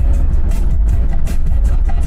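A car driving on the road, heard from inside the cabin as a steady low rumble of engine and tyres, with music playing over it.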